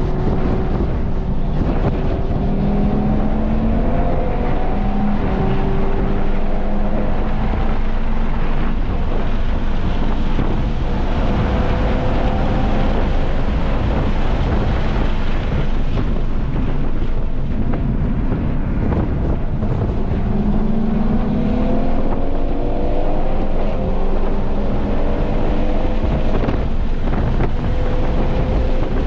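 Audi RS3's turbocharged five-cylinder engine pulling hard, its pitch climbing and then dropping back again and again through gear changes. Heavy wind noise on the microphone runs under it.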